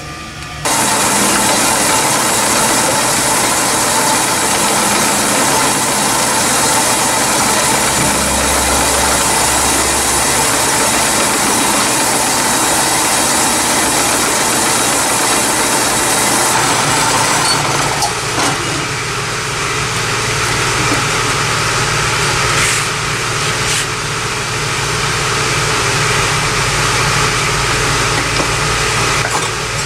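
Grizzly horizontal metal-cutting band saw running, its blade cutting through a cast engine accessory bracket with a steady, high-pitched rasp. It starts about half a second in, and its tone shifts about 18 seconds in.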